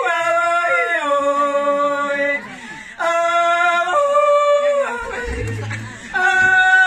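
Two women singing a warawi, a traditional Andean Quechua song, unaccompanied, in high, long-held notes that slide between pitches. They break off briefly about two and a half seconds in and again about five seconds in.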